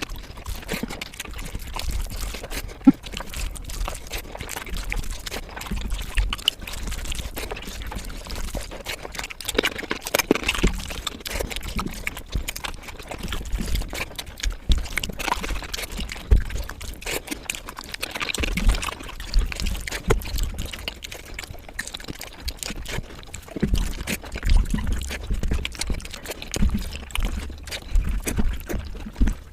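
Close-miked eating of rice and egg curry: wet chewing and lip smacking, a dense run of small moist clicks with soft low thumps.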